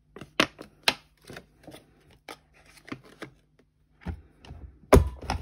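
A clear plastic acetate sheet crackling and clicking as it is handled and its flaps are folded in. About four and five seconds in come two dull knocks, the second the louder, as a hand tool is pressed down on the folds against the mat.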